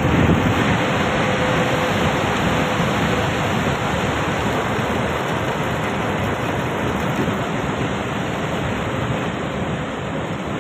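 Floodwater rushing down a swollen, muddy river: a loud, steady rush of turbulent water.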